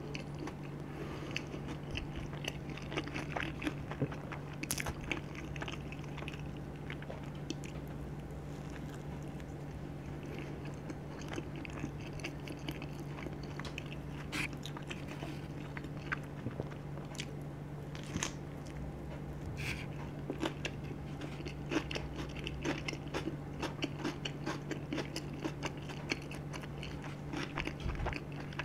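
Close-up chewing of charcoal-crust tandoori chicken pizza: many small wet clicks and light crunches, with a steady low hum underneath.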